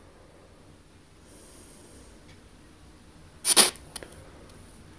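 P-SB7T spirit box sweeping FM stations through an ANC-Mini noise filter: faint hiss, broken about three and a half seconds in by one short, loud burst and a click just after.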